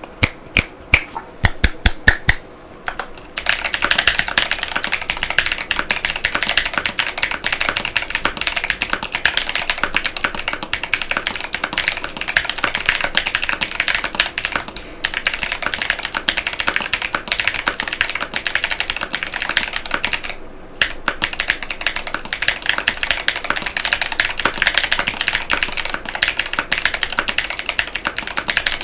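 Mechanical keyboard with Outemu Panda switches and PBT keycaps being typed on: about ten separate loud key strikes at first, then fast continuous typing for the rest, with two brief pauses partway through.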